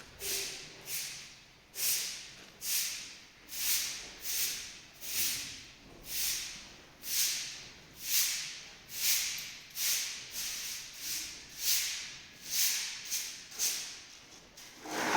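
Bristle brush sweeping in steady strokes, a little more than one swish a second, each stroke a hiss that swells and fades.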